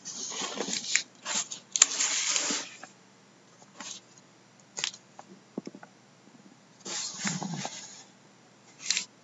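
Cardboard case and packaging being handled: two stretches of rustling and scraping, with a few sharp knocks in between.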